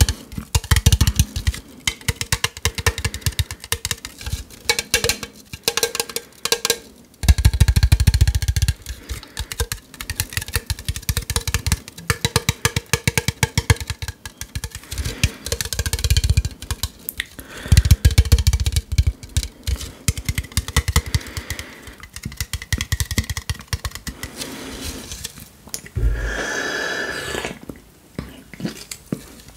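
Fingers tapping and scratching on an aluminium Coke Cherry can held right against a foam-covered microphone: rapid clicks, with heavier low thumps now and then. Near the end there is a short sip from the can.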